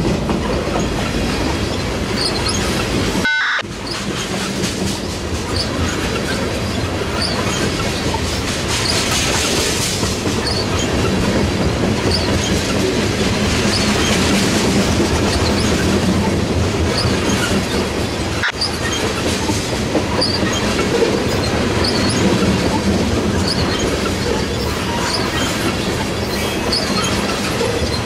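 Norfolk Southern freight cars rolling past with a steady rumble, their wheels clicking over rail joints at about one click a second.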